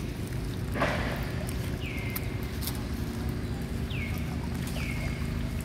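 Three short whistled animal calls, each falling in pitch and then holding briefly, spaced one to two seconds apart over a steady low rumble. A brief rustle comes about a second in.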